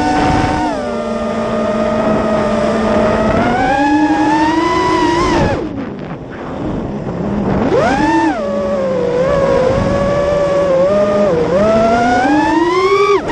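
Armattan Marmotte FPV freestyle quadcopter's brushless motors and propellers whining, the pitch rising and falling with the throttle, heard from the camera on board. About five and a half seconds in the throttle drops off sharply, about eight seconds in it punches back up, and near the end it climbs to a high whine and then falls away.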